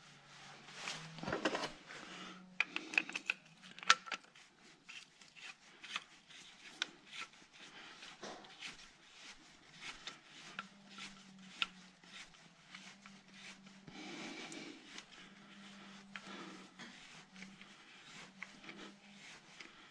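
Irregular small metal clicks, taps and scrapes from a screwdriver and small parts being worked against engine hardware during timing-chain replacement. The handling is busiest and rattliest about one to four seconds in, with another noisier stretch about two-thirds of the way through, over a faint low hum.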